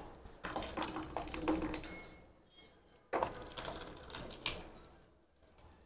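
Faint clinks and wet sliding sounds in two short spells as thick, three-quarters-cooked broken seeraga samba rice porridge is tipped from a steel pot into a pan of fried masala.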